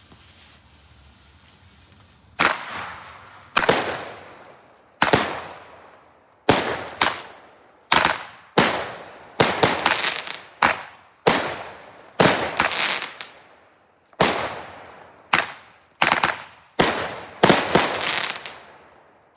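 A firework, lit and firing inside a toy washing machine: a fuse hisses for about two seconds, then about twenty loud bangs go off at uneven spacing, roughly one a second, each trailing off.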